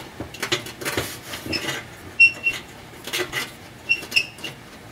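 Metal scraping and rubbing with scattered clicks as a broken oven bake element's terminal is worked out through its bracket in the oven's back wall, with a few short high squeaks.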